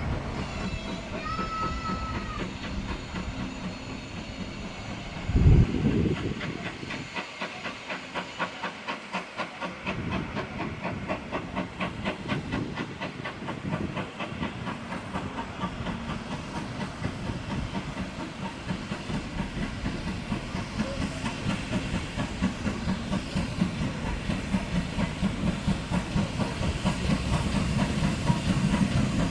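GWR large prairie 2-6-2T steam locomotive No. 5199 approaching with its coaches, its exhaust beating in a steady rhythm that grows louder as it nears. A brief low thump about five seconds in.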